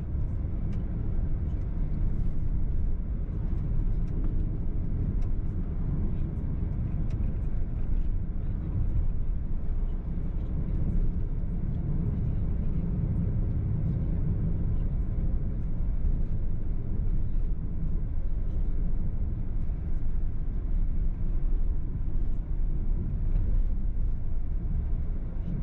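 A car driving: steady low rumble of engine and road noise, with faint scattered ticks throughout.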